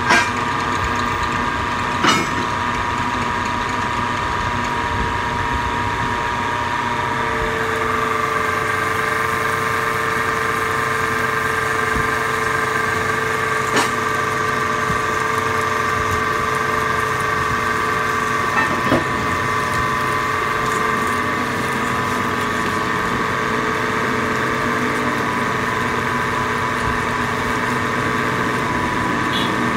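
Belt-driven metal lathe running steadily while a twist drill in the tailstock bores into the spinning metal workpiece, a constant hum and whine with a few sharp clicks.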